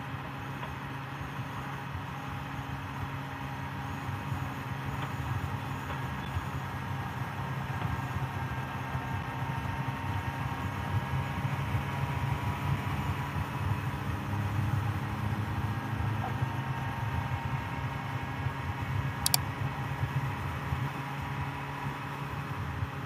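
Motorcycle engine running steadily under way, heard from the rider's helmet camera with wind noise over it. It gets a little louder through the middle, and there is one sharp click near the end.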